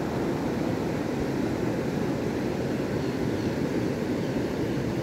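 Steady rushing of a fast river current flowing around a wading angler's legs, an even low noise with no breaks.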